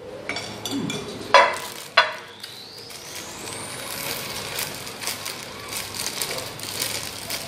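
Two sharp knocks of a ceramic bowl being set down on a table, then the steady crinkling of a thin plastic bag as sticky rice is pulled from it by hand. A faint high whistle rises in pitch between the knocks and the crinkling.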